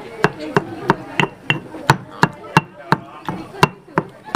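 Stone pestle pounding raw cleaned shrimp in a stone mortar, steady knocks about three a second, mashing the shrimp into paste for prawn crackers.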